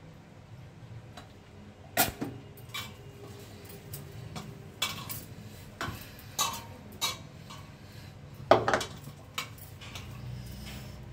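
Irregular clinks and knocks of a stainless-steel mixing bowl on a stone counter while semolina dough is mixed and kneaded by hand, about ten in all, with one sharp knock about two seconds in and the loudest about three-quarters of the way through.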